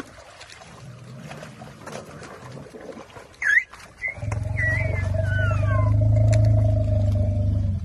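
Elephants calling: one short, loud, high squeal about three and a half seconds in, then a long low rumble with high squeaks sliding down in pitch over it, cutting off near the end.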